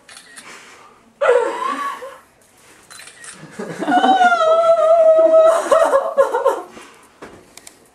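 A person's wordless, emotional vocalising: a short outburst about a second in, then a long held, wavering cry of about three seconds.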